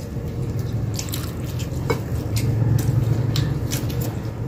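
Close-up wet chewing and mouth smacking of someone eating rice and fried chicken, with short irregular clicks.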